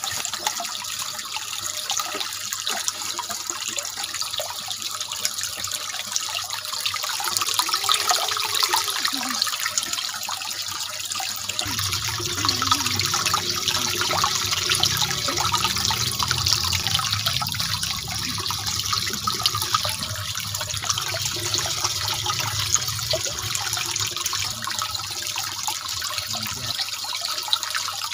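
Steady rush of running water in a catfish tank pond. A low rumble joins in from about twelve seconds in and fades again a couple of seconds before the end.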